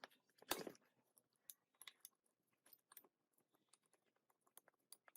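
Faint clicks and clinks of small metal parts and tools being handled during work on an old gearbox, with one louder scraping clatter about half a second in.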